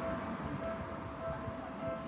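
Japanese railway level crossing's electronic warning bell ringing, a pitched tone repeating at an even rhythm.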